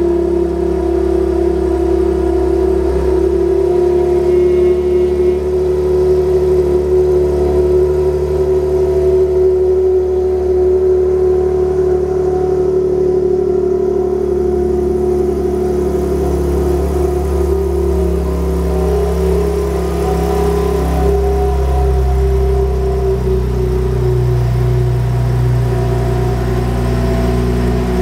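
Infiniti G37's 3.7-litre V6 idling steadily through Stillen headers and Tanabe test pipes, which leave the exhaust without catalytic converters and give a loud, raspy drone.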